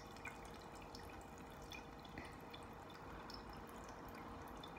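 Small tabletop water fountain trickling faintly, with many small scattered drips.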